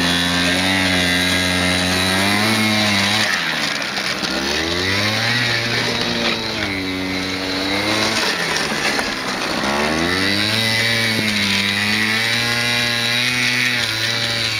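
Gilera Typhoon 50 scooter's two-stroke 50 cc engine running hard under load on snow. Its revs ease off and climb back up twice, a few seconds in and again about two-thirds through, then hold high.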